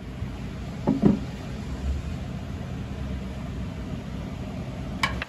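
Steady low background hum, with two quick knocks about a second in and a sharp click near the end: the chipper shredder's steel bar guard being handled and fitted back into its housing.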